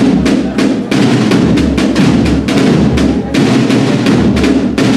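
Agrupación musical, a Spanish brass-and-drum band, playing a march: trumpets over snare drums and bass drum beating a steady rhythm.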